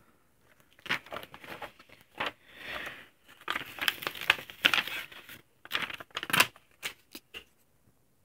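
Glossy pages of a comic book being turned and flipped by hand: a run of paper rustles and sharp flaps that begins about a second in and dies away after about seven seconds.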